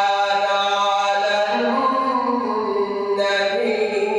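A man's voice in melodic Quran recitation (tajweed). He holds long drawn-out notes, with the pitch stepping up a little before halfway and falling away again near the end.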